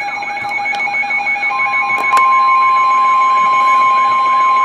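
Weather radio alert alarm: a warbling, siren-like tone over steady beeping, joined about a second and a half in by the loud, steady 1050 Hz NOAA Weather Radio warning tone, with two sharp clicks around two seconds in. It sounds between the station's data header and the next severe thunderstorm warning.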